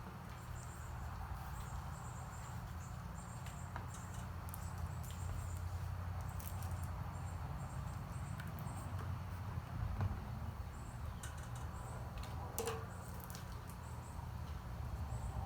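Soft, sticky slime being scraped out of a bowl and worked by hand: faint squishing and scratching with scattered small clicks, over a steady low hum.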